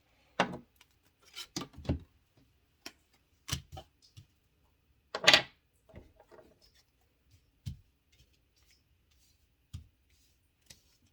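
Tarot cards being handled and set down on a table: scattered short taps and slaps, the loudest about five seconds in.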